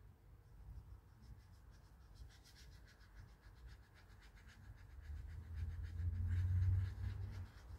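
Paintbrush mixing watercolour paint, making a quick run of soft, scratchy strokes from about two seconds in. Under the strokes is a low rumble that swells about five seconds in and fades near the end.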